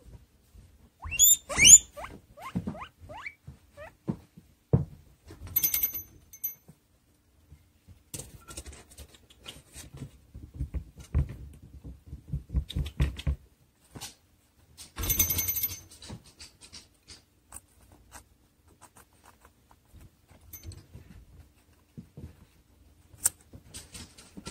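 Guinea pig making a few short, sharp rising squeaks about two seconds in, then scattered small noises and a stretch of quick pattering as it moves about the fleece-lined cage.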